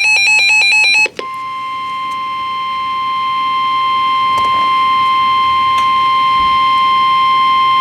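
Emergency Alert System activation on NOAA Weather Radio: about a second of rapid warbling SAME digital header tones, then the steady single-pitch 1050 Hz warning alarm tone, which signals that a warning broadcast follows.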